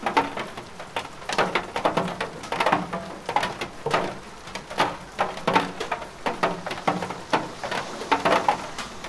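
Recorded rain: a dense, irregular patter of drops, with muffled pitched bursts recurring every half second or so.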